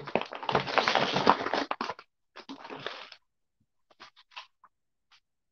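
Close rustling and scraping of things being handled and moved about while tidying up, with the phone held close. A dense crackling burst lasts about two seconds, a shorter one follows, then scattered light clicks and taps.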